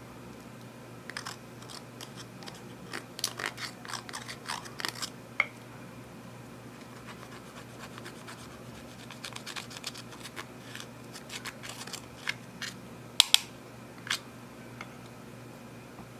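Clear slime being handled and worked with makeup eyeshadow, giving scattered sharp sticky clicks and small pops, busiest in the first few seconds and with a loud double click near the end, over a low steady hum.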